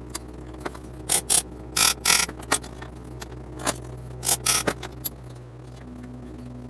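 Steel locking C-clamps and parts clicking and clanking as they are handled and repositioned on a steel frame between welds: a run of sharp clicks over the first five seconds or so, then quieter. A steady low hum lies under it all.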